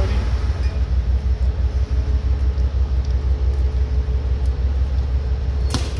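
Steady low rumble with a faint constant hum from a standing Amtrak Superliner train idling at the platform. A single sharp knock comes near the end.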